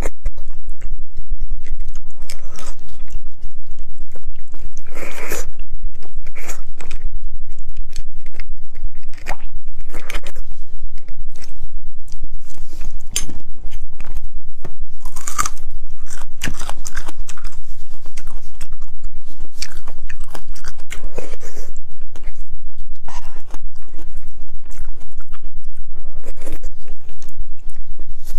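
Close-miked chewing of spicy braised beef bone marrow, with irregular wet smacks and crunchy clicks from the mouth, over a steady low hum.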